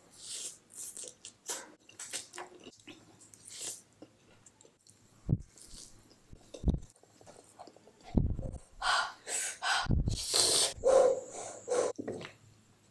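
Close-miked eating sounds: noodles slurped and chewed with wet mouth smacks. The sounds grow louder and denser in the second half.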